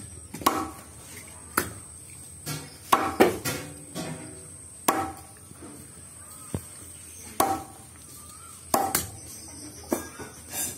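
Heavy meat cleaver chopping raw chicken on a wooden log chopping block: about a dozen sharp, irregular chops, some coming in quick pairs.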